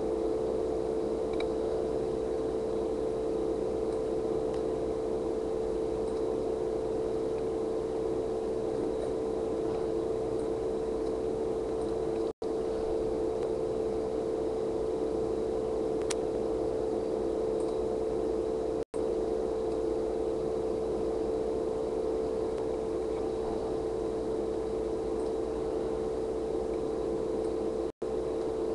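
Steady whirring hum of a computer's cooling fan with a constant mid-pitched tone, cutting out for a split second three times.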